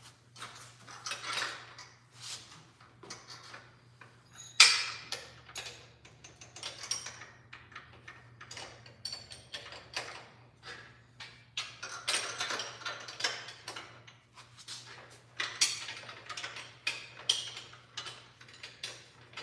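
Hand tools and metal minibike parts clicking and rattling during hand assembly: irregular clicks and short rattling spells, with one sharp clank about four and a half seconds in.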